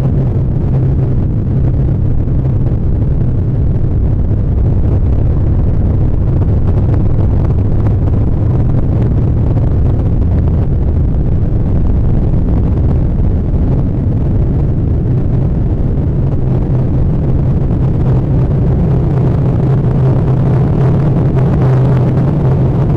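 Loud, steady low rumble with a constant deep hum underneath, unchanging throughout.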